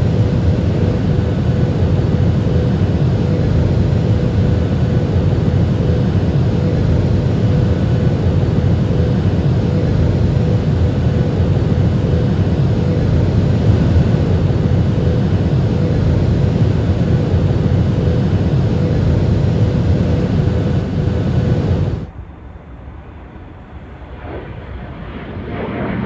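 Airliner cabin noise at cruise: a steady low roar of jet engines and rushing air, with a faint constant hum running through it. About 22 s in it cuts to a quieter jet airliner heard from the ground, growing louder toward the end as it flies overhead.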